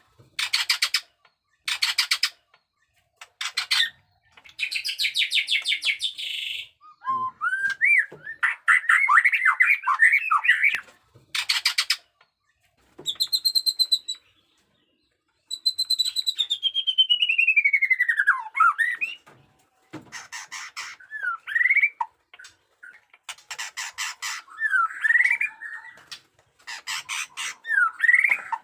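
White-rumped shama (murai batu) singing its aggressive fighting song: bursts of very rapid, harsh rattling notes alternate with clear whistled phrases, among them a long whistle sliding down in pitch just past the middle.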